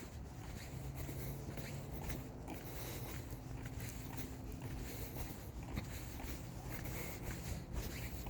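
Irregular rustling and scuffing, like footsteps and the handling of clothing, over a low steady hum.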